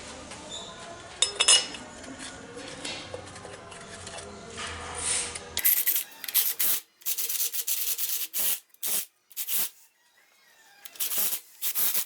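A couple of sharp clacks about a second in, then, from about halfway, repeated rubbing strokes on a hard surface, roughly two a second, with brief pauses between them.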